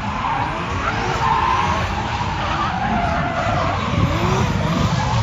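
Drift cars sliding in tandem: engines revving hard, their pitch rising and falling, over steady tyre squeal.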